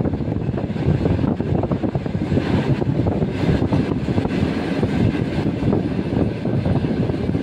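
ER2K electric multiple unit running at speed, heard inside the carriage: a steady rumble of wheels on rails with irregular knocks and clatter throughout.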